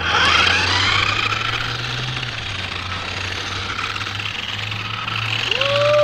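Electric motor of a remote-control car whining as it pulls away, its pitch rising over the first second and then holding steady while the car drives. A voice calls out briefly near the end.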